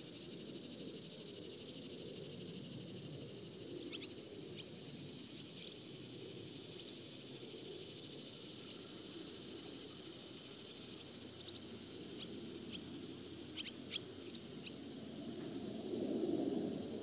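Insects trilling steadily on one high note in a summer field, with a few brief high bird chirps, some in quick clusters, about four, five and a half, and fourteen seconds in. Low wind noise underneath swells near the end.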